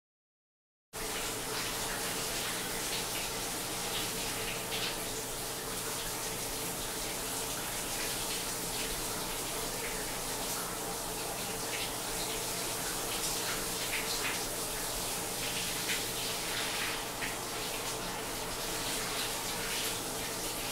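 Shower water running steadily: a constant hiss of spray that cuts in suddenly about a second in.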